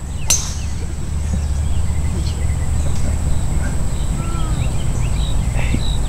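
A single sharp crack of a golf club driving a ball off the tee, about a third of a second in. Then a steady low rumble with faint bird chirps.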